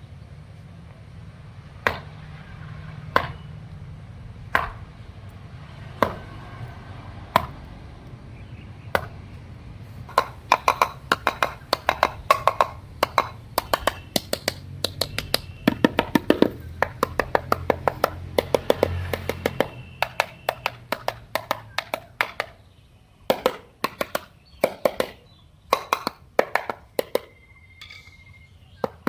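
A series of sharp taps and clicks on a hard surface. They begin slow and evenly spaced, about one every second and a half, then turn into quick rapid runs, and end in short clusters of taps.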